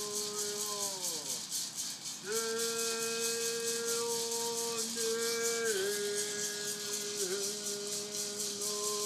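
Native American song: a man sings long held notes that slide down at the end of each phrase, over a hand rattle shaken steadily. One phrase falls away about a second in, a new note starts about two seconds in, and another phrase slides down near the end.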